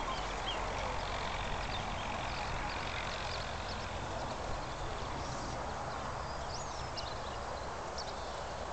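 Steady open-air background noise, an even hiss with a low rumble under it, with a few faint short high chirps scattered through it.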